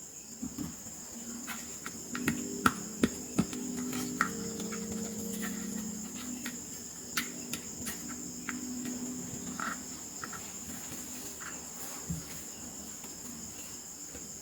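Light clicks and taps of small plastic toy pieces being handled, a quick run of them about two seconds in and a few more scattered later, over a steady high-pitched trill.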